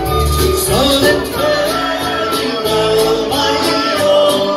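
Live band playing an upbeat song: singing over acoustic guitar and keyboard, with a steady beat.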